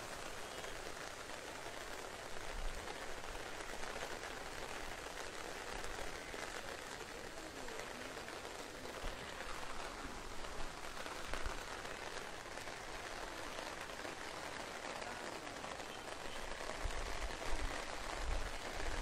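Steady rain falling on floodwater, an even hiss of rain on water with a few low bumps.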